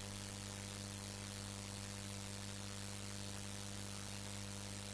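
Steady electrical hum with hiss, a constant low drone with a higher overtone and no change in level.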